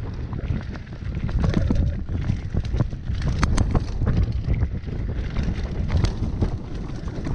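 Wind buffeting the microphone of a camera on a mountain bike descending a dirt trail, with frequent sharp clicks and rattles from the bike over the rough ground.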